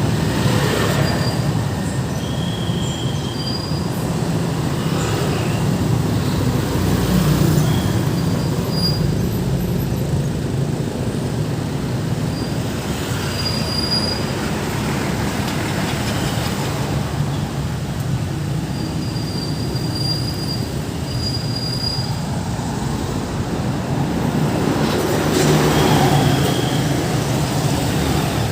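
Busy road traffic going by: a steady low rumble of engines and tyres that swells as heavier vehicles pass, about seven seconds in and again near the end, with brief high squeaks here and there.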